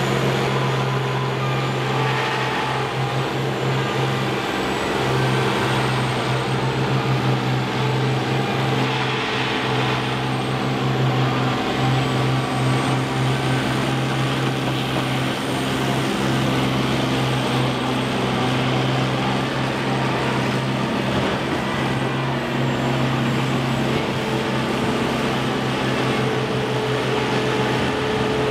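Engines of several combine harvesters running together in a steady, continuous drone.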